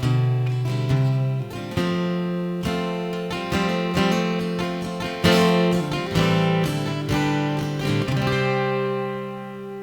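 Acoustic guitar strumming chords, ending the song on a final chord that rings out and fades.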